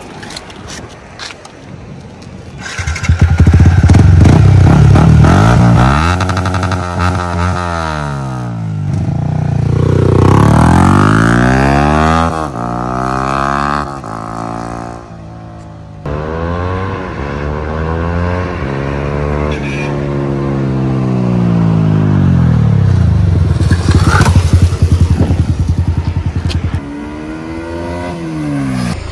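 Motorcycle engine running loud, its pitch sweeping up and down in several long, smooth rises and falls as it is revved.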